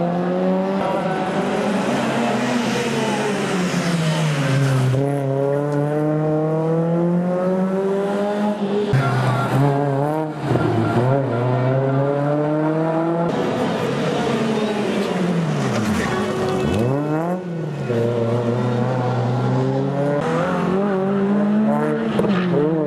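Rally car engines revving hard. Each engine note climbs through the revs, then drops sharply and picks up again through the corner, across several abrupt cuts.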